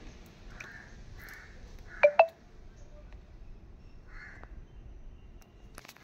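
Crows cawing faintly now and then. About two seconds in come two short, sharp beeps close together, the loudest sound here.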